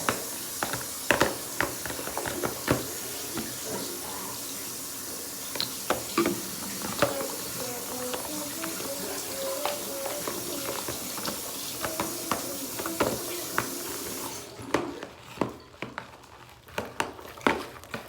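Tap water running steadily for about fourteen seconds, then turned off, with scattered clicks and knocks of things being handled.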